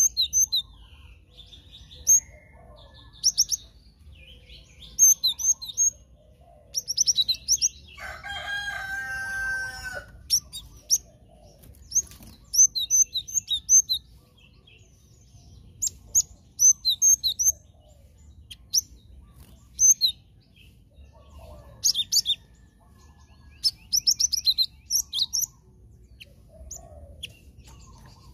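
Cinereous tit (glatik batu) chirping: short, high, sharp notes in quick clusters, repeated every second or two. About eight seconds in, a lower, harsher call lasts about two seconds.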